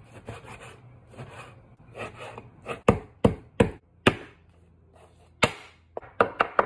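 A cleaver slicing through pork belly with soft scraping strokes, then a few sharp single chops on a wooden cutting board. Near the end it starts chopping garlic in a quick, even run of knocks, about six a second.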